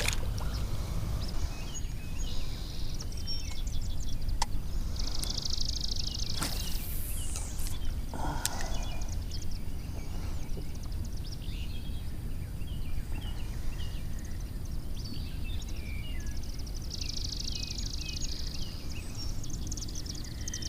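Marsh ambience: birds chirping, with a high pulsing trill that comes three times, over a steady low rumble. A few sharp clicks are scattered through it.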